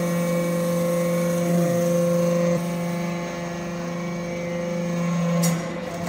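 Hydraulic metal-chip briquetting press running, giving a steady mechanical hum from its motor and hydraulic pump. A higher tone drops out about halfway through, and there is a short click near the end.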